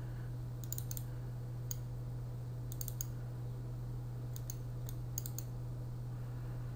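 Scattered computer mouse clicks, some in quick pairs and triples, over a steady low hum.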